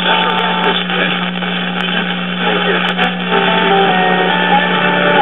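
A 1968 Zenith Y114C five-tube AM radio being tuned across the band: static hiss and brief snatches of broadcast voices, then a station's music coming in about three seconds in, all over a steady low hum.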